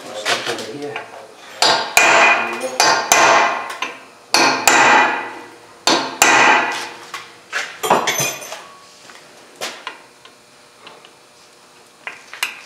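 Hammer striking a steel drift held on a brake rotor's retaining screw, shock-loosening the tight screw so it won't strip. Five or six heavy metallic blows, each ringing on, come about every second or two. After about eight seconds there are only a few light knocks.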